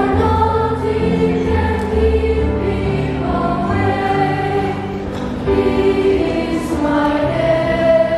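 Children's choir singing a church song together.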